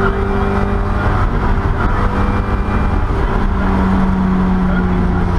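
Classic Mini rally car's A-series four-cylinder engine running hard at steady high revs under load, heard from inside the cabin.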